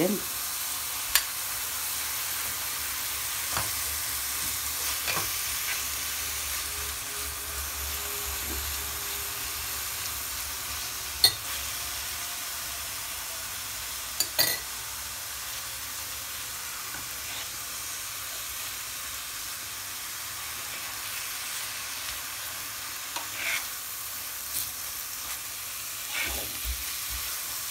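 Minced turkey and onions frying in olive oil in a pan, a steady sizzle, with a few sharp clinks of a metal spoon against the pan.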